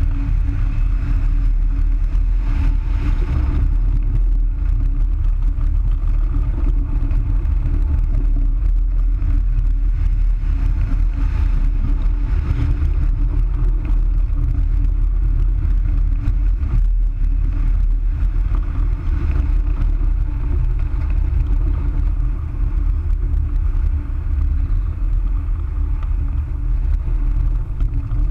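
Rushing air buffeting the microphone of a camera mounted on a hang glider's wing in flight: a loud, steady, deep rumble of wind noise.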